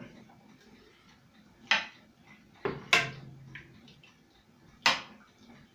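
A serving spoon knocks against a stainless steel pot while scooping meatballs out of tomato sauce. There are four short, sharp clinks, two of them close together near the middle.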